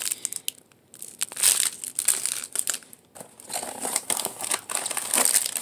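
Plastic wrapping on diamond painting kit packs crinkling and rustling as they are handled, in irregular bursts with brief pauses.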